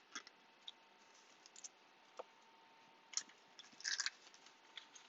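Trading cards being handled and flipped through: faint scattered clicks and light rustles of card stock, a small cluster of them near the end.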